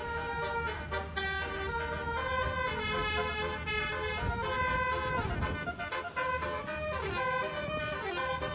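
Multi-tone basuri telolet horn playing a melody note by note, several horns sounding together. In the second half a few notes slide down in pitch.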